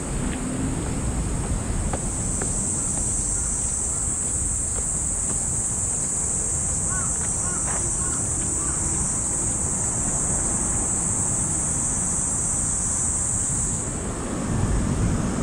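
Cicadas buzzing in a steady, high-pitched drone that sets in about two seconds in and stops a little before the end, over a low rumble of wind on the microphone.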